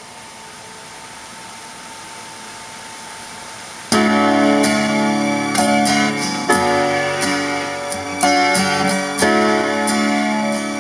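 Steady hiss for about four seconds, then a song's instrumental intro starts abruptly: plucked, guitar-like chords with keyboard, a new note or chord struck about twice a second.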